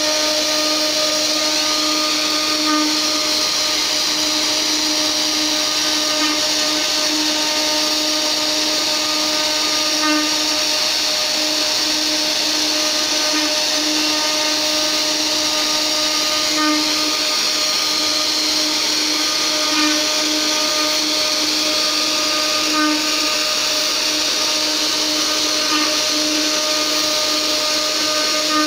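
A mini CNC router's 500 W spindle runs at a steady high whine while its D4 R1 bit finish-mills a carved wood relief. The cutting noise swells slightly about every three seconds.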